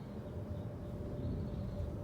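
Outdoor background: a steady low rumble with a constant mid-pitched hum running under it, and no clear birdsong or writing sounds standing out.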